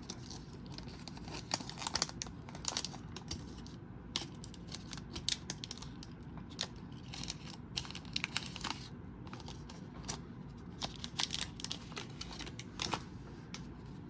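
Scissors cutting into the wrapper of a basketball card pack and the wrapper being opened, heard as irregular short snips and crackles.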